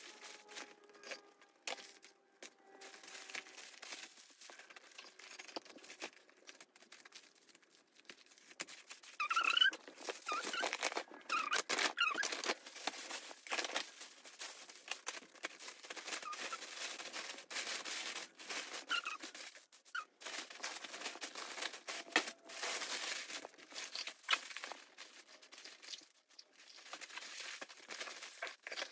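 Tissue paper rustling and crinkling as it is handled and folded for gift wrapping, in irregular bursts, with a few short squeaky sounds about ten seconds in.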